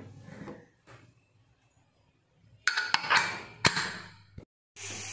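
Aluminium pressure cooker's lid and whistle weight being handled: a few bright metallic clinks with a short ring, ending in one sharp click about three and a half seconds in as the weight goes onto the vent pipe. A steady hiss starts near the end.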